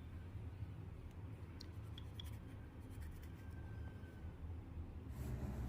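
A knife lightly scoring the skins of ripe tomatoes: faint scraping with a few soft ticks over a low hum.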